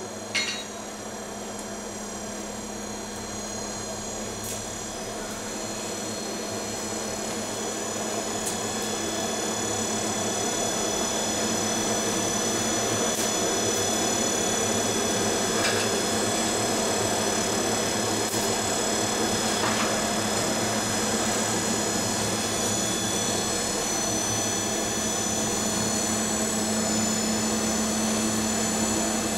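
One hammer blow on the steel anvil right at the start, then a steady machine hum with a high whine, slowly growing louder over the first ten seconds or so and then holding level, with a few faint clicks.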